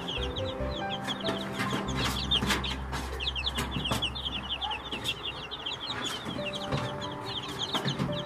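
Flock of 15-day-old Kadaknath chicks peeping continuously, many rapid high chirps each falling in pitch, with scattered clicks.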